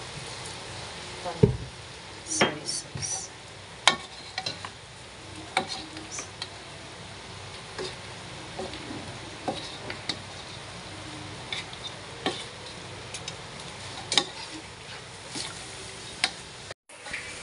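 Spatula stirring and turning sliced vegetables and seafood in a hot pan: a steady soft sizzle with irregular scrapes and clacks of the spatula against the pan, the loudest a knock about one and a half seconds in. The sound cuts out for a moment near the end.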